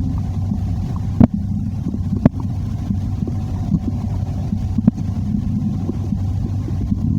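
Stomach growling heard close up against the belly: a steady low rumble, broken by three short, sharp pops.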